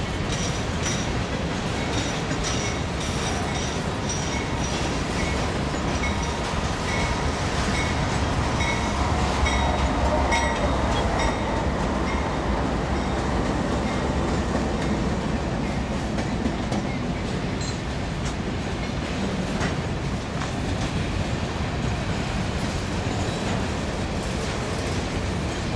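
Covered hopper cars of a loaded grain train rolling by with a steady rumble, their wheels clicking over rail joints at a regular beat. Near the middle a pair of GE AC4400CW diesel locomotives passes on the adjacent track, and their deep engine rumble swells and then fades.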